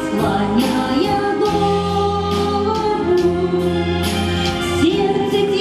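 A woman singing live into a microphone over an instrumental backing with a steady beat, holding long notes.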